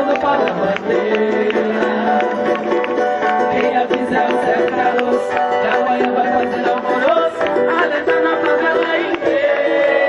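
Live acoustic samba band playing without lyrics: plucked strings over a steady hand-percussion beat.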